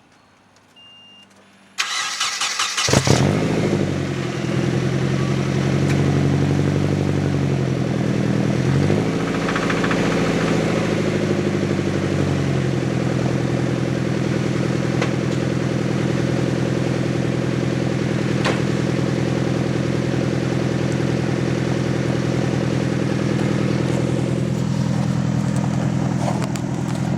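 Nissan KA24DE four-cylinder engine cranked and started about two seconds in, running at a high, wavering idle before settling into a steady idle about halfway through. The engine has a rod knock, which the owner puts down to oil starvation.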